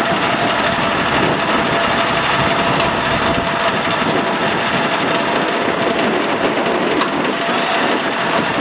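Diesel engine running steadily, an even mechanical drone with no change in speed.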